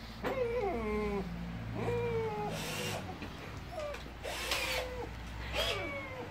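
A dog whining: a run of high whimpers, each falling slightly in pitch, about one every second or so, with a few short noisy bursts between them.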